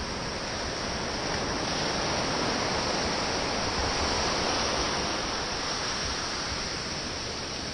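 Ocean surf washing up the beach: a steady rushing that swells a couple of seconds in and eases off toward the end.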